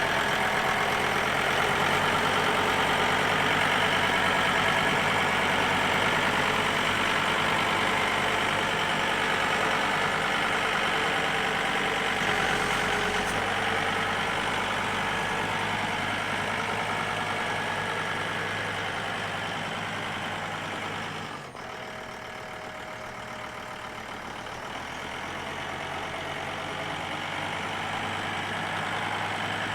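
Two-wheel-drive John Deere farm tractor engine running steadily while it works with its front bucket. About two-thirds of the way through the sound drops abruptly and then carries on a little quieter.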